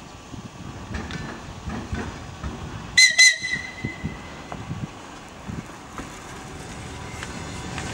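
ER2K electric train pulling away slowly, its wheels knocking irregularly over the rail joints. About three seconds in come two short, high toots of its signal whistle.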